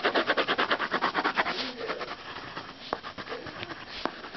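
Peach wax crayon scribbling on notebook paper as a body is coloured in: quick back-and-forth strokes, about ten a second, strongest in the first second and a half and then softer, with two sharp ticks near the end.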